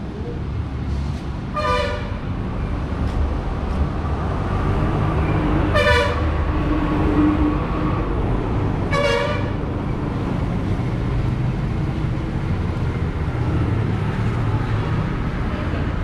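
Vehicle horns sounding three short toots a few seconds apart over the steady rumble of passing road traffic.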